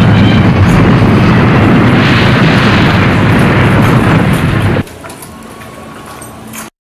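Loud, deep explosion-like rumble for a toy train crash. About five seconds in it drops suddenly to a quieter steady hum, which cuts off just before the end.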